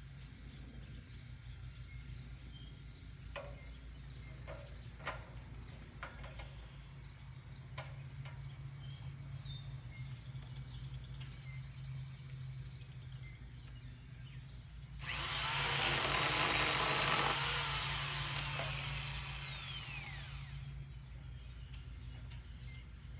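A power tool, likely a saw used for trimming, runs at speed with a high whine for a couple of seconds, then is let off and winds down, its whine falling as it slows. Before that there are only a few light knocks over a steady low hum.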